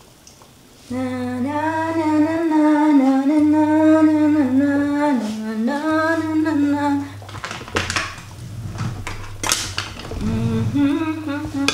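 A woman humming a wordless tune in long held notes that step up and down. A few sharp clicks and knocks follow, then a short hum near the end.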